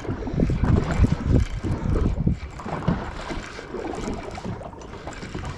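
Wind rumbling and buffeting on the microphone aboard a boat, heavier for the first couple of seconds and then easing off.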